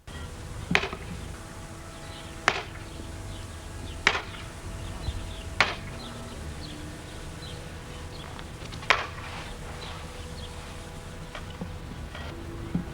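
Hand-tool blows on timber: five sharp knocks, about one to three seconds apart, over a steady low hum.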